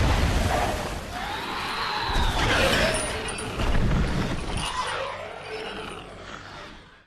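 Skullcrawler monster cry sound effect: a long, harsh screech whose pitch arcs up and down over a deep rumble, trailing off toward the end.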